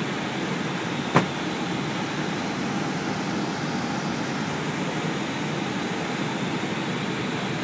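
Steady rushing noise inside an Airbus A321 flight deck in flight: airflow and air-conditioning hiss at an even level. About a second in there is a single sharp click.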